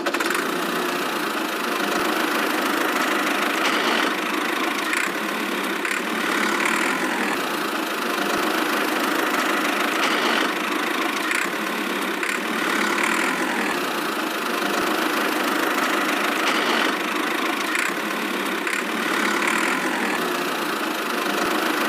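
A small motor running steadily, with a faint, slightly uneven rise and fall.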